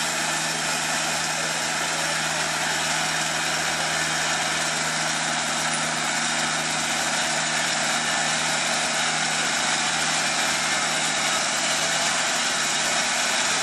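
TimberKing 2000 bandsaw mill running steadily under load, its engine and band blade sawing lengthwise through a cant of Elaeocarpus grandis: an even, unbroken sawing noise over a steady engine hum.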